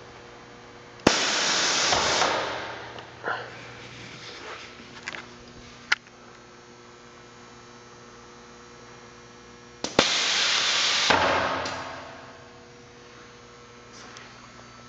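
Lancaster frame and door clamp's pneumatic system cycling: a sharp valve click, then a loud hiss of air that lasts about a second and dies away, twice, about nine seconds apart. A steady low hum runs underneath.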